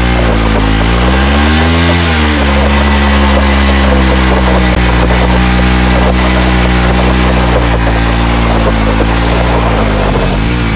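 Bajaj Pulsar NS200's single-cylinder engine held at high revs in a stationary burnout, the rear tyre spinning on gravel. The revs rise and fall back about two seconds in and again near the end.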